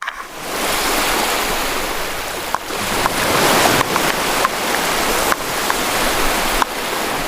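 Ocean surf: a steady wash of breaking waves, with a few faint short clicks through it.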